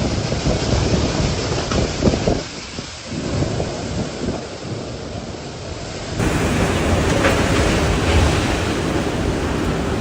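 Typhoon wind and rain noise, with gusts buffeting the microphone. About six seconds in it cuts abruptly to another stretch of louder, stronger wind.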